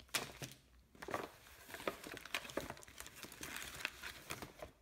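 Crinkling and rustling of MRE plastic-laminate ration pouches being handled and pulled open, with irregular short crackles throughout.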